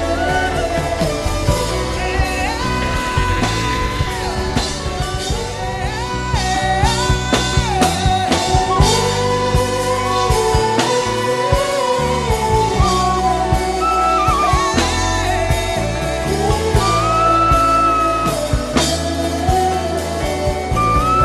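Wordless humming of a slow, gliding melody over backing music with bass and drums.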